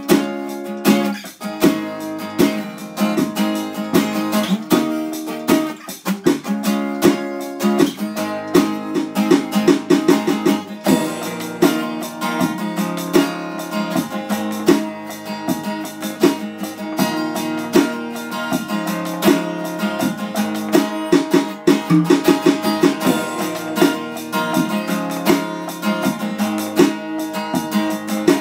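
Background music: guitar playing a run of quick plucked notes.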